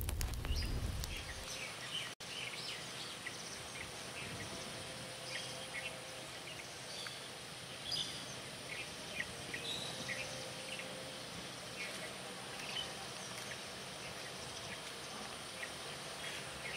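Outdoor rural ambience: birds chirping in short calls at scattered intervals over a steady high insect drone. A low rumble fades away over the first second or two.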